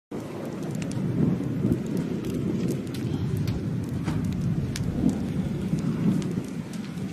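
Strong wind buffeting the microphone with a continuous gusting low rumble, dotted with scattered sharp ticks.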